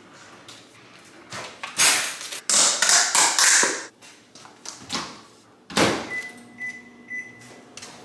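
Kitchen clatter of dishes and utensils being handled, then a microwave door shutting with a thunk, three short keypad beeps, and the microwave starting to run with a low steady hum as leftovers are reheated.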